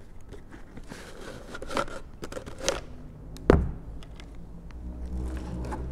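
Padded foam liner being pulled out of a Micro MT-Plus hard-shell inline skate boot, fabric and foam scraping and rustling against the plastic shell, then a single sharp knock about three and a half seconds in.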